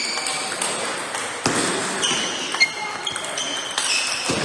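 Table tennis ball being struck back and forth in a rally, a quick series of sharp pocks off the bats and the table, each with a brief high ring, about two hits a second.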